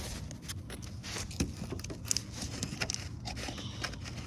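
Irregular small clicks, taps and rustles of hands handling fishing tackle, over a low steady background rumble.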